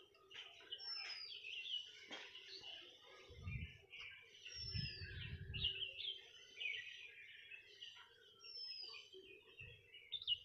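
Birds chirping and singing, with a high falling whistle repeated every few seconds. Two low rumbles come near the middle, over a faint steady hum.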